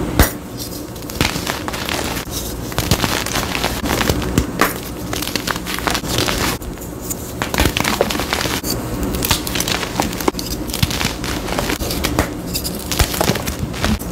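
Blocks of gym chalk crushed and crumbled in bare hands: a dense run of crunchy, crackling breaks as the soft chalk falls apart into chunks and powder.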